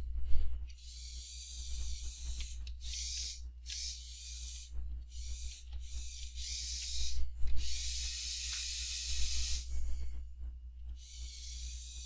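ROBOTIS PLAY 700 dog robot's drive motors running in short spells as it is driven by remote control, heard as a high hiss that starts and stops about eight times. A steady low hum runs underneath.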